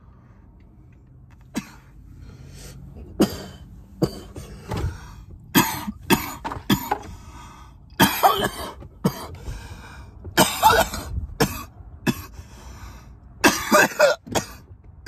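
A man coughing in a long fit after inhaling from a Delta-8 vape pen. Single coughs start about a second and a half in, then build into louder clusters of several coughs in a row.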